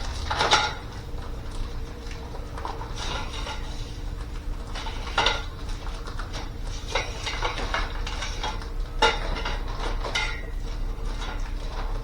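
Sauna frame pipes and their plastic connectors clattering and knocking as they are picked up and fitted together, with four sharper knocks (about half a second in, around 5 s, around 9 s and around 10 s) among smaller clicks.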